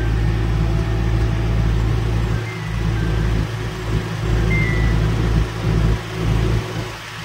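Case 770EX backhoe loader's diesel engine running steadily, heard from inside the operator's cab while the backhoe arm is being worked, its level dipping briefly every second or so.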